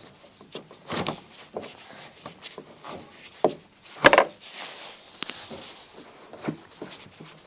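Knocks, clicks and rubbing from a VAZ 2114 rear seat backrest being handled and rocked, with the loudest knock about four seconds in. These are the knocks being tested for, where the backrest beats against a step at its metal mounting.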